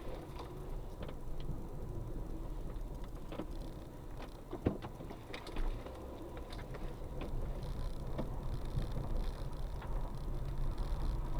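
A car driving with a steady low road and engine rumble, and scattered sharp knocks and clicks from underneath, the loudest about halfway through. The knocking is taken by the occupants for some loose metal part or the skid plate catching on something, not the suspension.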